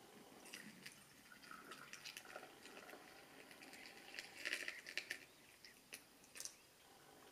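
Faint trickle of rosemary hydrolat poured in a thin stream from a ceramic dish through a funnel into a small glass jar, a little louder about four and a half seconds in.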